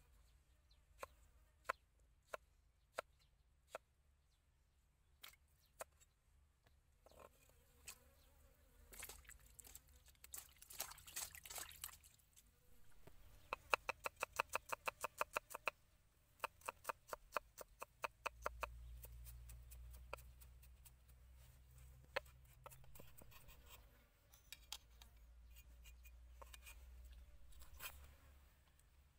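Cleaver knocking on a wooden chopping block: a few single knocks in the first seconds, then, about halfway through, a quick even run of chops, roughly five a second, as garlic cloves are chopped. A low rumble runs through the later part.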